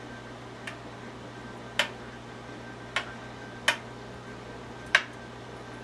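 Metal serving spoon clinking against a glass baking dish while gravy is spooned over a pot roast: five sharp taps, roughly a second apart.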